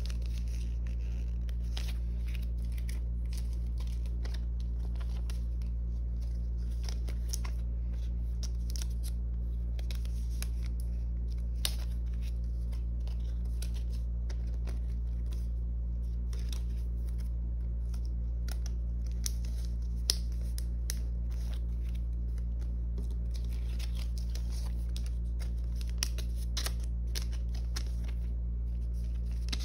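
Thin resealable plastic sleeves crinkling and rustling as photo cards are slid into them and handled, with scattered small clicks and a few sharper snaps, over a steady low hum.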